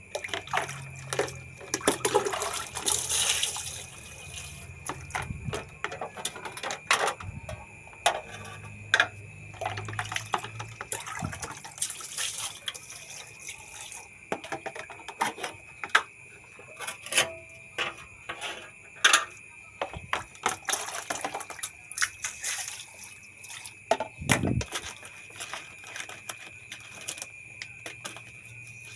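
Water splashing and running while parts of a ceiling fan are washed by hand, with frequent clicks and knocks as the parts are handled and a few longer swishes. A faint steady high tone sounds underneath.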